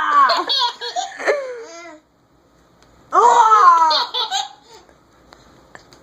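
A baby laughing in two bouts, the second starting about a second after the first ends, each bout a run of high, falling squeals.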